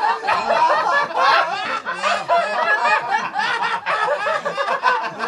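A group of people laughing together, many voices overlapping in continuous chuckles and snickers.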